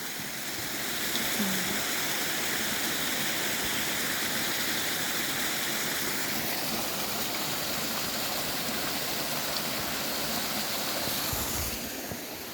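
Rushing water of a cascading mountain creek pouring over rocks, a steady hiss that swells a little about a second in and drops away near the end.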